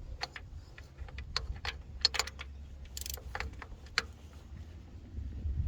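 Hand ratchet clicking in short, irregular strokes, a few clicks a second, as bolts are snugged into an aluminum power steering pump bracket.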